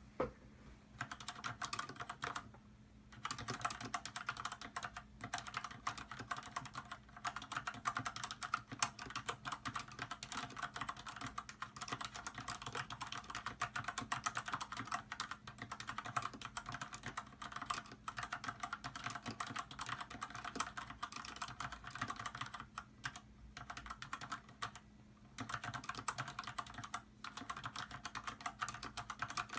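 Steady, fast typing on an Archon Stylish mechanical keyboard with red linear switches. The rapid keystrokes carry the hollow case resonance typical of mechanical keyboards, broken by a few short pauses.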